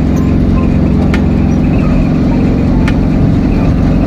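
Tata Ace mini truck's two-cylinder diesel engine running steadily at cruising speed, heard from inside the cab along with road noise. A couple of light clicks are heard.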